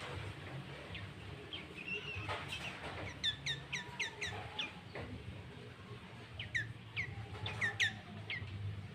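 Sooty-headed bulbul (kutilang) calling in quick runs of short, sharp, downward-sweeping notes, in two bursts, over a faint low hum.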